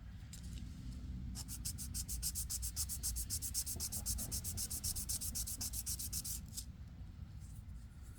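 600-grit sandpaper rubbed by hand over a shifter bushing insert in quick back-and-forth strokes, about five or six a second. The strokes start a little over a second in and stop about six and a half seconds in. The insert is being sanded down because it fits too tight in the shifter.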